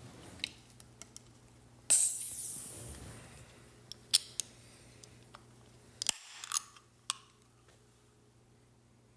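A fizzy Smirnoff Screwdriver drink being opened: a sharp crack about two seconds in, then a fizzing hiss that fades over about a second and a half. A few light clicks and taps follow.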